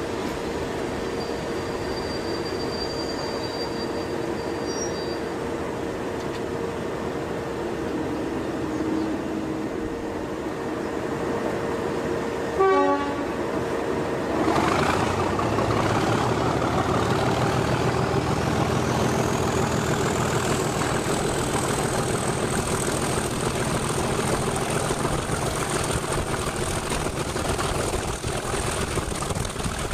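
Class 37 locomotive's English Electric V12 diesel idling, with a brief horn toot a little before halfway. The engine then opens up to pull away: its turbocharger whistle climbs steadily in pitch over several seconds and settles high over the engine's steady drone.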